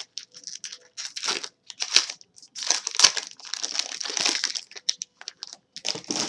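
A Topps baseball card pack's foil wrapper being torn open and crinkled by hand: a run of irregular crackles, densest in the middle, before the card stack is pulled out.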